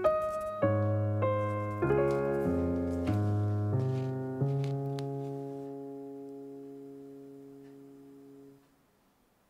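Background piano music: struck notes and chords, the last chord held and fading away, ending about eight and a half seconds in.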